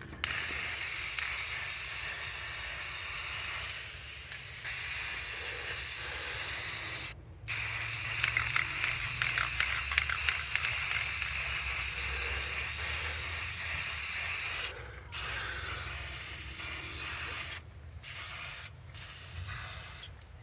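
Aerosol spray paint can spraying with a steady hiss, in long bursts of several seconds each with brief pauses between.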